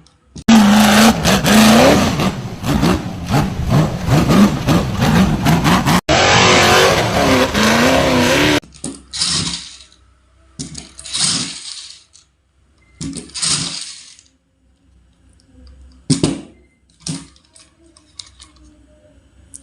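Toy off-road car's electronic engine sound effect, starting and revving from its small speaker for about eight seconds. After that come scattered short rustles, scrapes and clicks of the toy being handled.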